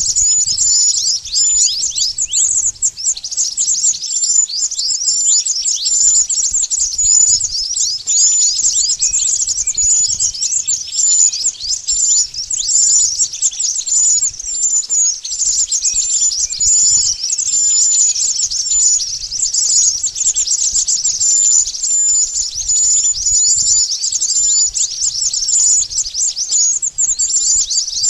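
Bird-lure recording of mantenan bird calls: a dense, unbroken stream of rapid, high-pitched chirps, many of them quick falling notes, several a second.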